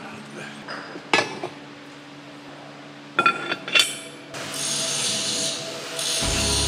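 Cast metal valve parts knocking and clinking as they are handled and set into a drilling jig, with a sharp clatter of metal about three seconds in. Near the end a radial drill press starts running with a low hum.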